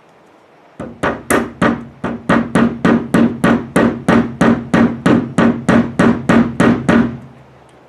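A mallet tapping a rear-window trim clip down onto its post in the car body's window channel: a steady run of about twenty quick taps, three or four a second, stopping about a second before the end, with the sheet metal ringing faintly under them.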